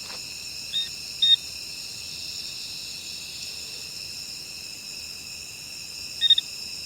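Steady chorus of night insects such as crickets, with three short high chirps about a second in, a little later, and near the end.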